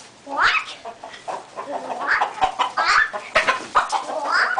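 Chickens clucking and calling, many overlapping short calls from a flock of hens, with several rising squawks.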